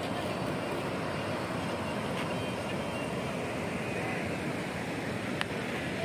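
Steady rushing of a river in flood running over rocks, mixed with wind buffeting the microphone; one short sharp click about five seconds in.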